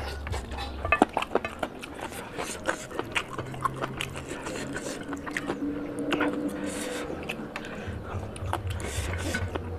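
Close-miked chewing of chicken curry and rice: wet lip smacks and sharp mouth clicks coming irregularly, with a brief low hum about halfway through.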